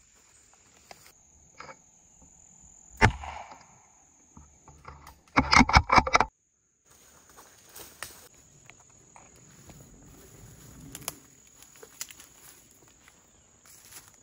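A single sharp gunshot about three seconds in, ringing out briefly, followed a couple of seconds later by a rapid run of loud cracks and rustles lasting about a second. Afterwards, faint footsteps crunch through dry leaf litter.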